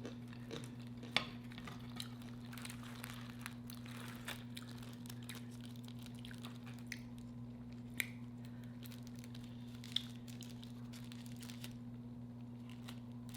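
Quiet table sounds of a meal: scattered small clicks and taps of dishes, cutlery and wrapping being handled, over a steady low hum.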